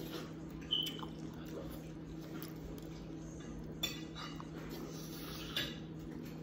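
Quiet eating at a dinner table: three light clinks of tableware, about a second in, about four seconds in and near the end, over a steady low hum.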